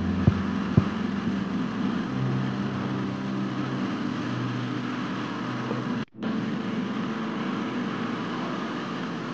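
Floodwater rushing through an underground parking garage, a steady noise of churning water with a low hum underneath. The sound cuts out for a moment about six seconds in.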